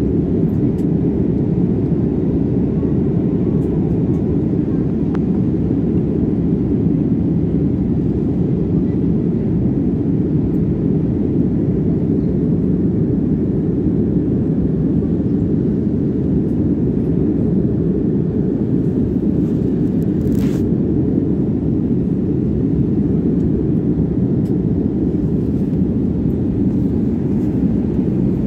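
Airliner cabin noise in flight: a steady, even low rumble of jet engines and airflow heard from a window seat, with one brief click about twenty seconds in.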